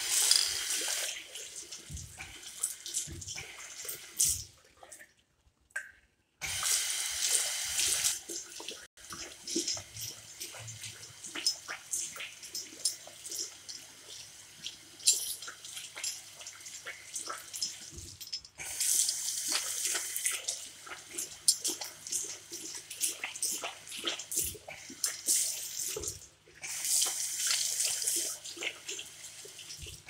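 Water from a push-button commercial tap running over hands into a ceramic basin, swelling and splashing as the hands move under the stream. The flow cuts out about five seconds in and starts again a second later. A steady low hum comes in about ten seconds in.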